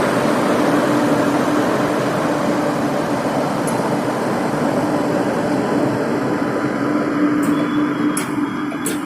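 Passenger train of ICF coaches hauled by a WAP-7 electric locomotive, running: a steady rumble with a low, even hum, easing off slightly toward the end. A few sharp clicks come near the end.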